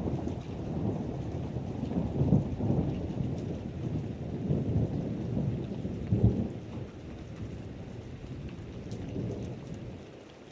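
Rolling thunder over steady heavy rain. The rumble swells louder about two seconds in and again around six seconds, then dies away toward the end, leaving the rain.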